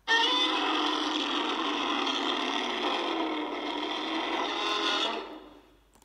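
Heisei-era Godzilla roar sound effect: one long, harsh, pitched roar that starts abruptly, holds for about five seconds and tails off near the end.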